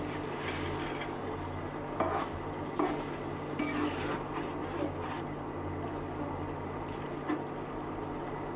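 A spoon stirring and scraping in a cooking pot of egg curry, with a few sharper clinks against the pot, over a steady low hum.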